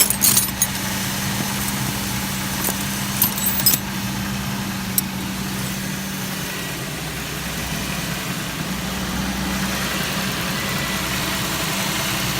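The 2004 Chevy Venture's 3.4-litre V6 idling steadily as it warms up with the heaters on full after a heater hose replacement. A few light metallic clicks come in the first few seconds.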